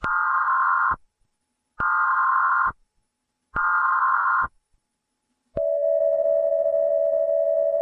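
Emergency Alert System header: three short, even data bursts of buzzing tones, each just under a second with about a second of silence between them. About five and a half seconds in, a steady alert tone starts with faint static beneath it.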